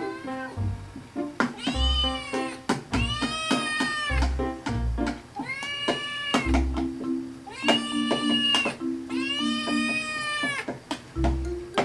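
Silver Bengal kitten meowing insistently for food: about five long, drawn-out meows that rise and fall in pitch. Background music with a regular low beat runs underneath.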